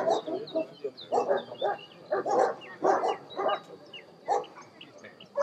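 German shepherd dog barking repeatedly in short bursts, a few barks at a time with brief gaps between.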